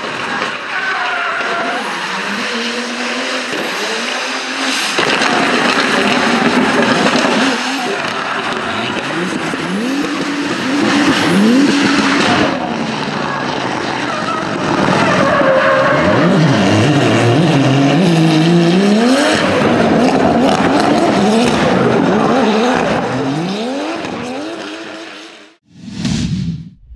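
BMW drift cars sliding through a corner one after another, their engines revving up and down hard while the tyres screech and skid. Near the end a short whoosh sound effect.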